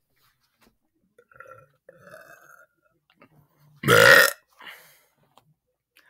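A teenage boy's deliberately forced burp: one loud, short belch about four seconds in, after a few faint sounds from his mouth.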